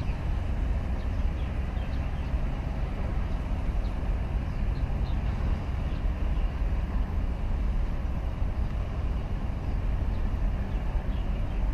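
Steady low rumble of a large container ship under way close by, mixed with wind buffeting the microphone.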